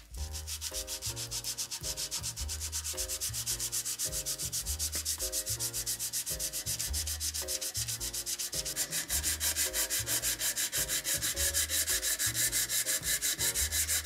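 Sandpaper on a hand sanding block scrubbed back and forth over a flat steel grinder platen in rapid, even strokes, cleaning old epoxy off the metal and roughing it up.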